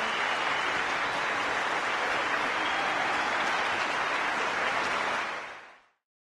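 Large audience applauding steadily; the applause fades out near the end.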